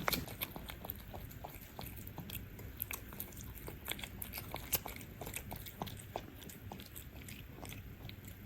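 Cats eating close to the microphone: irregular wet chewing and crunching clicks, several a second.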